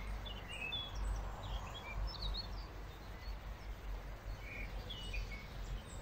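Small birds chirping, short scattered calls one after another, over a low steady rumble of outdoor background noise.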